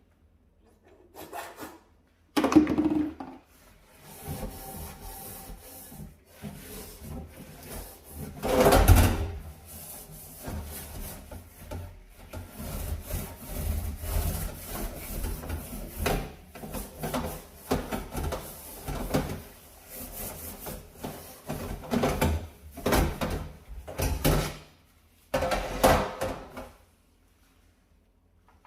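Scrubbing a dirty stove with a brush in many short repeated strokes, with brief pauses; two strokes about 2.5 and 9 seconds in are the loudest, and the scrubbing stops shortly before the end.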